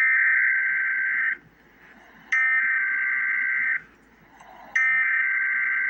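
Emergency Alert System SAME header: three bursts of two-pitch digital data tones, each about a second and a half long with about a second's pause between them. These bursts carry the coded alert header, which marks the start of an emergency alert.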